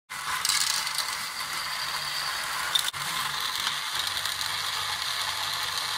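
Small motor and plastic gears of a toy train and crane loader set whirring steadily, with a brief break about three seconds in.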